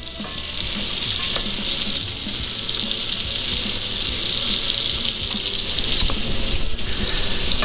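Sliced mushrooms sizzling steadily in hot butter, bacon grease and olive oil in a cast-iron pan, stirred with a wooden spoon.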